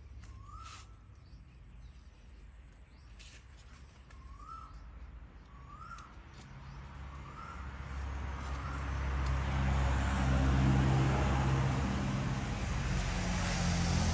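Short calls, each rising then dropping, repeated about once a second and fading away over the first half. Then a vehicle's engine rumble and hiss swell in from about halfway and become the loudest sound, peaking about ten seconds in.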